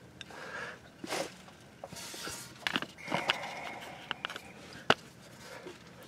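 Scattered clicks, taps and rustling of hands and a socket working the loosened front differential fill plug, with one sharp metal click near the end.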